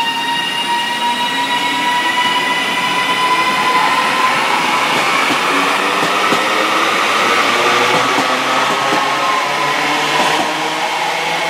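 Northern multiple-unit passenger train passing at speed: a steady rush of wheels on rail with a motor whine that slowly falls in pitch as it runs away down the line.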